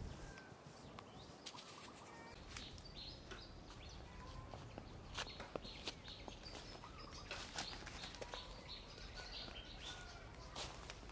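Footsteps in sandals crunching over dry straw and leaves, as a run of irregular light clicks. Short high bird chirps come in the background several times.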